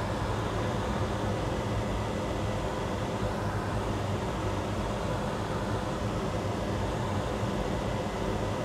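Steady whirring hum of a fan, even and unchanging, with a low drone underneath.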